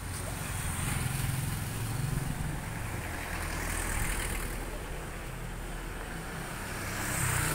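Street traffic: engines of passing vehicles, a motorcycle tricycle and an SUV among them, over a steady low engine rumble. The sound swells as each vehicle goes by, about a second in, around the middle and again near the end.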